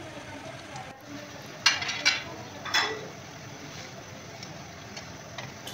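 Spinach pakoras deep-frying in hot oil in an aluminium kadai, a steady sizzle. Around two seconds in, three sharp metal clinks ring out as a slotted spoon strikes the pan.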